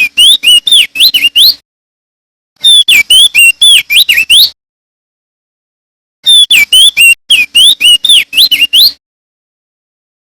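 Male crested darkeye (opior jambul) singing loudly: three phrases of rapid, swooping whistled notes, each one to three seconds long, separated by short silences.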